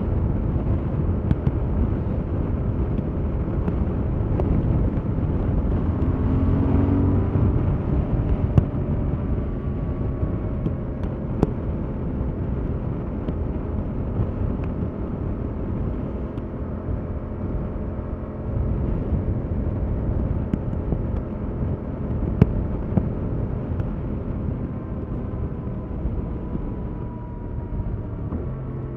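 2021 Yamaha MT-07's 689 cc parallel-twin engine with its stock exhaust running on the move, a steady rumble whose pitch briefly rises about six seconds in. A few sharp clicks stand out over it.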